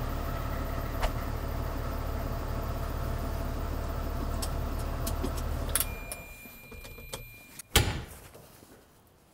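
Tractor diesel engine idling steadily with a few light clicks, then shut off about six seconds in and running down. A high steady tone sounds briefly afterwards, then a single loud thump near the end.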